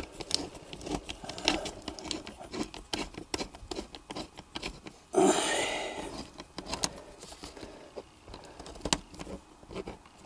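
Small scrapes, clicks and rattles of hands handling a metal hose clamp on a hose, with a louder rustle about five seconds in.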